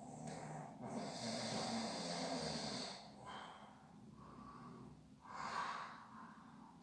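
Heavy snoring during sleep: a long noisy breath with a low rattling buzz lasting about two seconds, then quieter breaths and a shorter, sharper snort-like breath near the end.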